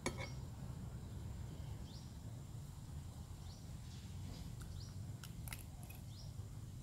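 A bird chirping in short calls, repeating roughly once a second, over a steady low rumble, with a couple of sharp clicks about five seconds in.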